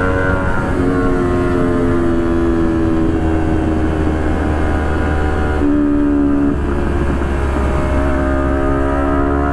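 Honda CBR250RR's parallel-twin engine running at highway speed under a riding load, its pitch shifting as the throttle changes and the bike slows. There is a marked change in engine note about six seconds in.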